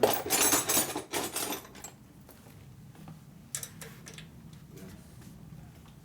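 Metal tools and hardware clinking and rattling in a short burst, followed by a few light clicks.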